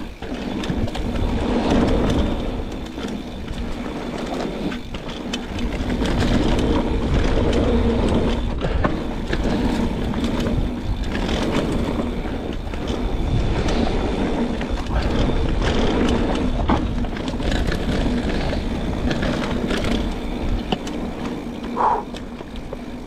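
Mountain bike descending a rough singletrack trail at speed: a steady rumble of tyres and rushing air, broken by frequent clicks and knocks as the bike rattles over roots and rocks, over a faint steady buzz.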